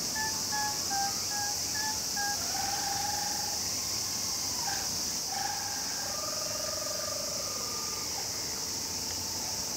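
Insects keep up a steady high drone while a wind instrument plays a slow line of held notes. Early on the notes step upward; later two sustained notes waver with vibrato, and one slides down about eight seconds in.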